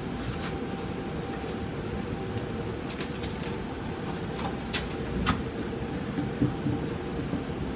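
Steady low background rumble with a faint hum, broken by a few soft clicks about three and five seconds in.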